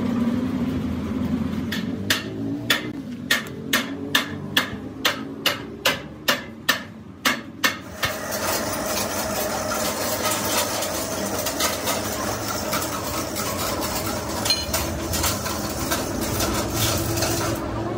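Hammer blows on metal, a dozen or so sharp strikes at about two a second, followed about eight seconds in by a denser stretch of rapid clatter and scraping noise.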